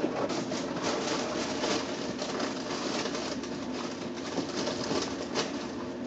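Rapid, irregular clicking and rustling, over a steady low hum.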